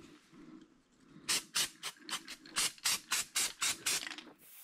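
Aerosol can of dye-penetrant developer sprayed in about a dozen short hissing puffs, about four a second, starting a little over a second in, coating a ceramic bowl to bring out a crack.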